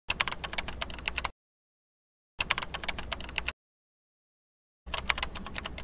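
Three bursts of rapid crackling clicks, each a little over a second long, with dead silence between them: an intro sound effect.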